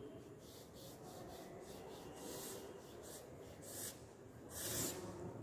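Marker pen drawing on cardboard: a series of soft scratchy strokes, the longest and loudest near the end.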